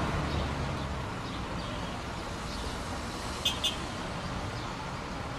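Road traffic noise: a steady hum of vehicles, with two short high beeps about three and a half seconds in.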